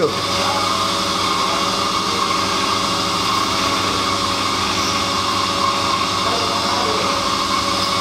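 A machine runs with a steady drone and hum, unchanging throughout, while milk is poured from a steel can into a steel measuring jug.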